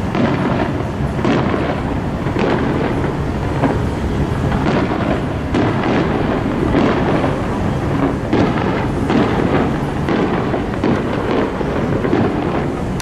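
Aerial fireworks shells bursting in quick succession, several booms a second overlapping into a steady, loud rumble with crackle on top.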